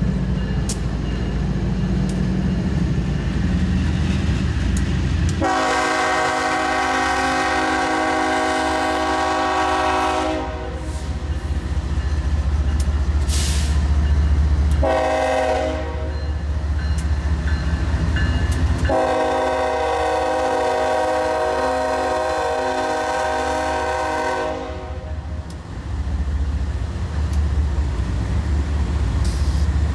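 Freight train passing behind BNSF diesel locomotives, engines rumbling steadily, as the lead locomotive's multi-chime air horn sounds three blasts: a long one about five seconds in, a short one near the middle, and another long one from about two-thirds through.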